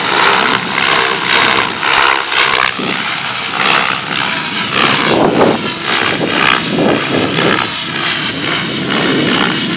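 Mikado Logo 700 electric RC helicopter in flight: its rotor blades and motor make a loud whirring whine. Both pitch and loudness rise and fall repeatedly as it manoeuvres.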